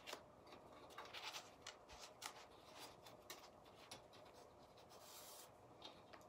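Faint, irregular rustling and scratching of hands tying twine, the cord rubbing over a tin tile.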